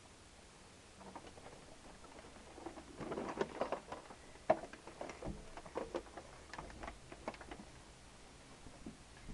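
Light clicks, taps and rustling from small objects being handled, with a busy stretch about three seconds in and one sharp click just after. No motor is running.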